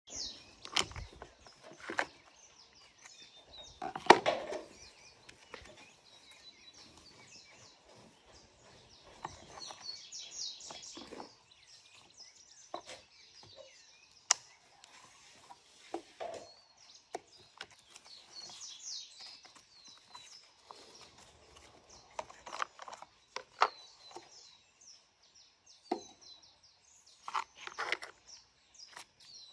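Scattered plastic clicks and knocks as a Stihl MSA 120 C battery chainsaw is handled and set down on a concrete ledge, its battery taken out and its sprocket cover removed; the loudest knock comes about four seconds in. Birds chirp in the background.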